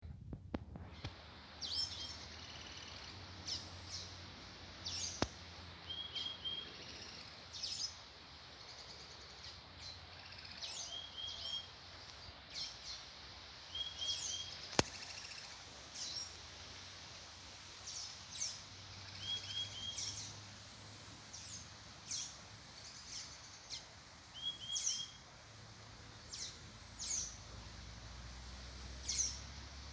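Wild birds calling: sharp, high notes that slide downward, repeated irregularly, and a quick three-note phrase about every three to five seconds, over a steady background hiss.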